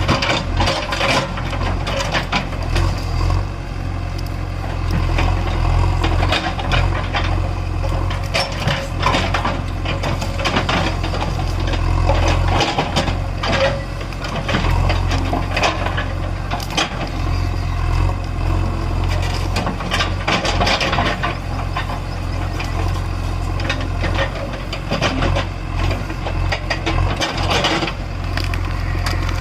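JCB 3DX backhoe loader's diesel engine running steadily under load, with frequent clanks and rattles from the working machine.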